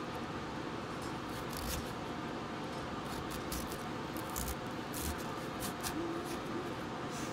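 Chef's knife slicing through a head of cabbage onto a plastic cutting board: a series of short cuts at an irregular pace, over a steady background hum.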